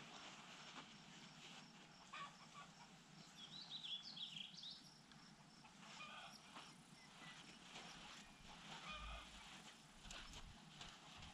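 Near silence: faint outdoor ambience, with a bird chirping a few times about four seconds in.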